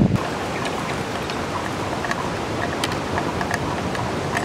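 Steady outdoor ambience: an even hiss of distant surf with faint, short chirps and ticks scattered through it. A gusting of wind on the microphone cuts off just after the start.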